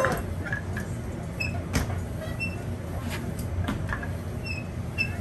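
Wooden rolling pin working a sheet of dough on a stone counter: a few sharp knocks and taps, the loudest at the very start and near the two-second mark, over a steady low hum. A few short high chirps are scattered through it.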